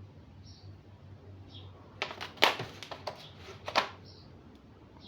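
Small metal screwdriver bits and their plastic tool case being handled, giving a cluster of sharp clicks and clacks about two seconds in, over a low steady hum.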